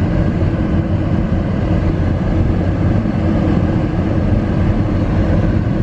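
Steady road and engine noise of a car being driven, heard from inside the cabin: a constant low rumble.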